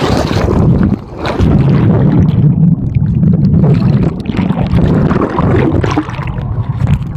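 Water rushing and churning against a phone's microphone on a water slide, with a heavy muffled rumble as the phone goes under water.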